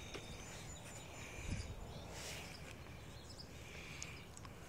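Quiet outdoor background with faint insect chirping and birds, and a soft handling bump about a second and a half in.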